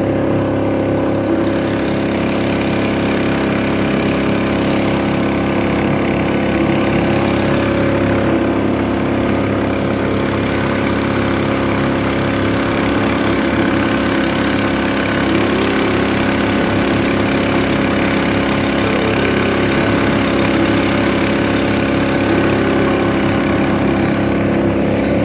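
Motorboat engine running at a steady speed, a constant hum with no change in pitch.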